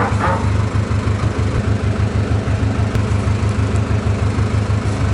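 A steady, loud, throbbing low drone of an engine running at idle, with a short rustle of paper being handled right at the start.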